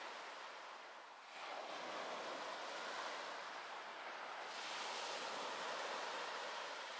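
Small waves breaking and washing up the shore in a steady surf hiss. It dips about a second in, then swells again.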